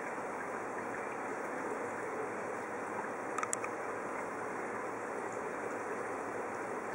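Steady underwater hiss, with a quick cluster of three sharp clicks about three and a half seconds in.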